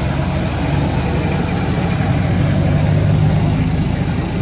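A loud, steady low rumble that holds an even level without breaks.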